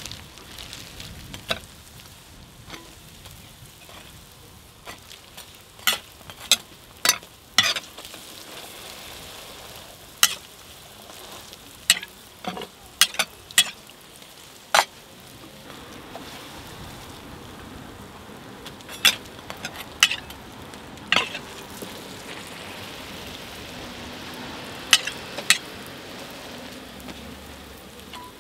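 Hotteok frying in oil on a flat griddle, sizzling steadily, with many sharp, separate clacks of metal tools against the griddle.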